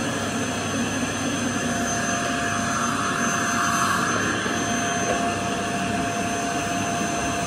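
Bagless canister vacuum cleaner running steadily, its motor giving a constant whine over a rush of air. The sound swells briefly about halfway through, when the canister is grabbed and moved.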